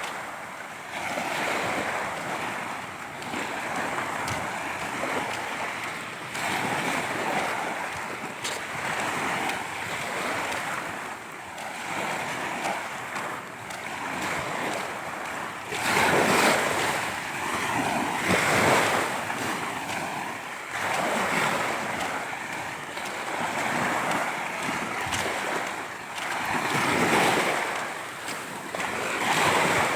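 Sea waves breaking and washing up the shore, a continuous rushing surf that swells and falls back, with the strongest breakers about halfway through and again near the end.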